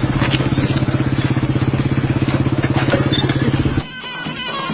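An engine running with a fast, even throb that cuts off suddenly near the end, where music begins.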